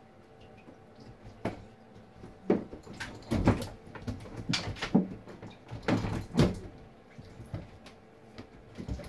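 Irregular thumps and knocks of two young long-tailed (Java) macaques jumping and wrestling on a bathtub rim, their hands and feet hitting the tub. The knocks start about a second and a half in and die away about seven seconds in.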